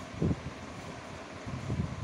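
Aquarium aeration bubbling: a steady hiss from the stream of air bubbles rising off the air stone, with low rumbles now and then.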